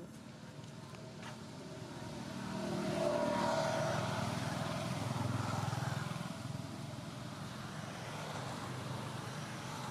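Motor vehicle engine passing by: a steady rumble that swells about two seconds in, stays loudest for a few seconds, then fades back to a lower drone.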